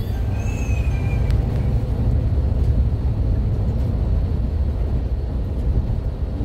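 Steady low rumble of a Scania K360 IB coach on the move, its engine and road noise.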